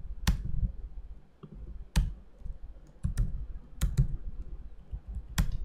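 Typing on a computer keyboard: irregular keystrokes with short pauses, a few sharper clicks standing out.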